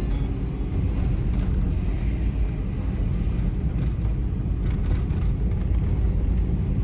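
A vehicle driving along a road: a steady low rumble of engine and road noise, with a few faint knocks and rattles.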